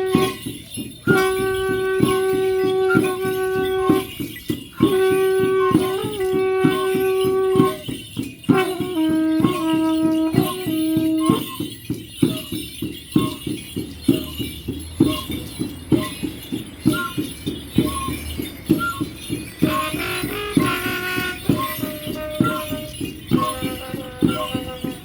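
Mapuche dance music: a drum beating steadily about twice a second with a rattling, jingling layer. Over it, a wind instrument holds long notes of about two to three seconds each, then plays shorter, higher notes in the second half.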